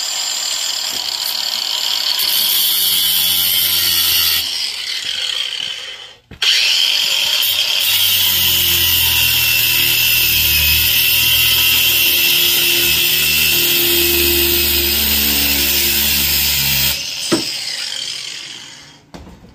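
Cordless angle grinder with a cutoff wheel cutting through metal stock held in a vise: a steady high-pitched whine with the grinding of the wheel in the metal. It stops briefly about six seconds in, starts again, and winds down near the end.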